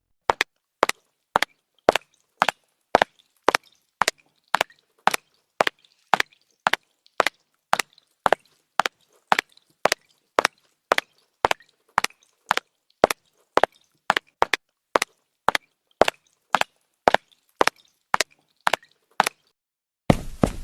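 A long series of sharp knocks or taps, evenly spaced at about two a second, with silence between them; they stop about a second before the end.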